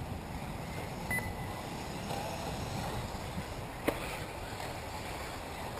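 Steady low open-air rumble, with one sharp click about four seconds in.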